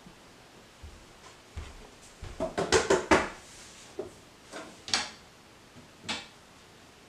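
Wooden kitchen cabinet doors being opened and shut: a run of knocks and clacks, busiest about two and a half to three seconds in, then single knocks about a second apart.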